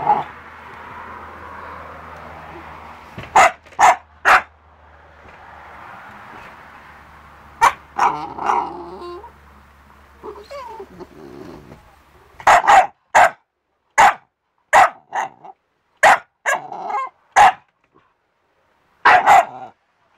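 English bulldog × Staffordshire bull terrier puppy barking: short, sharp barks, a few at first, then rapid bursts of them over the second half, with lower growly noises between the barks in the middle.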